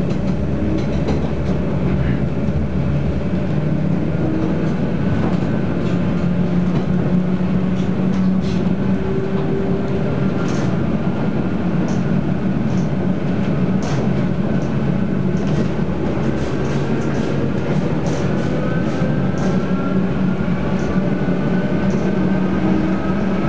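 Running noise of a ČD class 451/452 'panťák' electric multiple unit under way, heard from inside by the door: a steady low rumble of wheels and bogies. In the second half a thin whine rises slowly in pitch, and sharp clicks of the wheels over rail joints come through.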